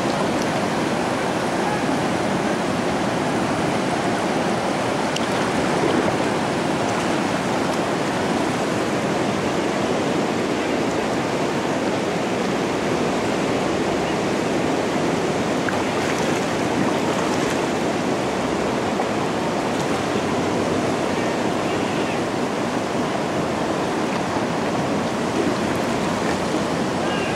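Whitewater river rapids rushing steadily, a dense, even sound of churning water.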